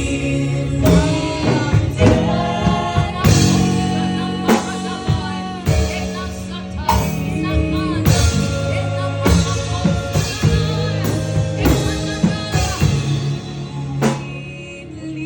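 Live gospel worship music: voices singing over a band with bass and drums.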